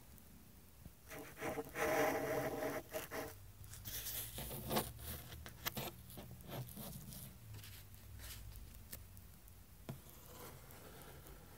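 Scratchy rustling and scraping close to the microphone as a tabby cat shifts about, with a brief pitched sound about two seconds in and a sharp click near the middle; quieter and sparser in the second half.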